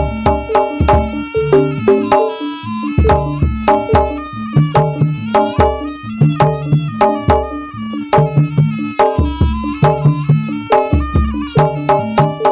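Jaranan music, the Javanese horse-dance music: drums and struck gamelan metal instruments play a busy, evenly repeating rhythm of short ringing notes.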